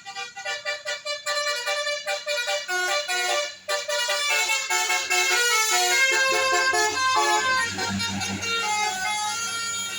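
Bus telolet horn, a multi-note air horn playing a quick run of changing tones, with low bus engine noise swelling about eight seconds in.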